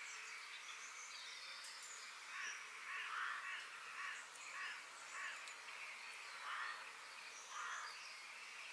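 Forest birds calling over a steady background hiss: a string of short, harsh calls in the middle, with thin high chirps scattered throughout.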